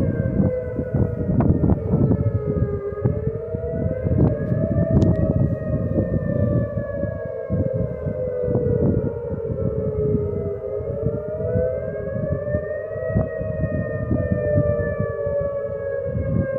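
Tornado warning siren sounding a continuous wail. Several tones sound at once and slowly rise and fall in pitch over several seconds, over a loud low rumbling noise.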